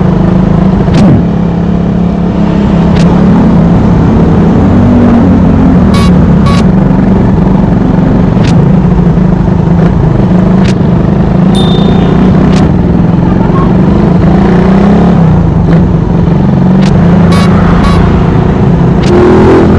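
Motorcycle engine running at low road speed, its pitch holding steady with small rises and dips as the rider eases the throttle, heard from the rider's seat. A few short, sharp clicks come through at intervals.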